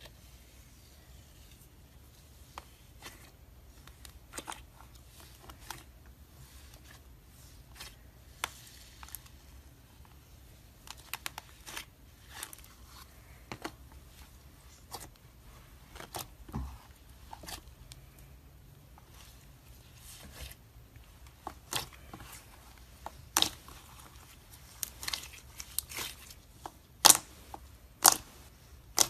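Glitter slime worked by hand: irregular sharp pops and crackles as it is kneaded, pressed and squished, with trapped air bursting out. The pops come more often and louder in the last few seconds.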